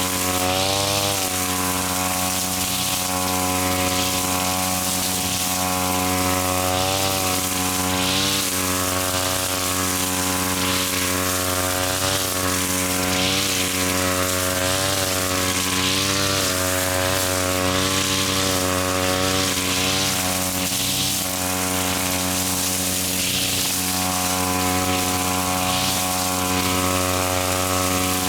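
Small petrol engine of a grass cutter running steadily at high speed, its pitch sagging briefly every few seconds and then recovering as the blade takes on thick grass.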